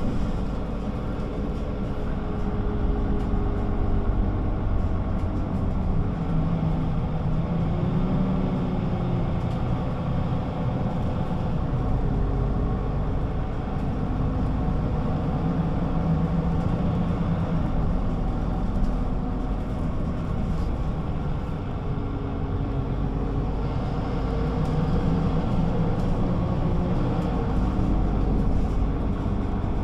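Güleryüz Cobra GD 272 city bus running on the road: a steady low engine and road rumble, the engine pitch rising and falling several times as the bus speeds up and eases off.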